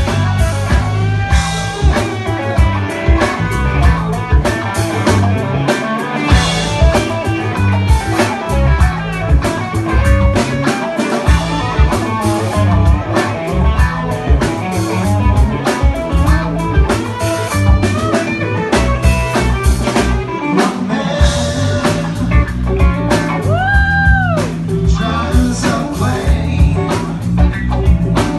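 A small band playing a groove with drum kit, a stepping bass line and guitar over a steady beat. Near the end, one note swoops up and back down.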